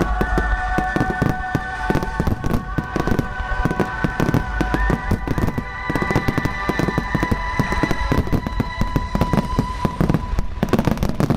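Fireworks display: a dense, irregular run of crackles and bangs, over music from the show's sound system with long held notes that fade out about ten seconds in.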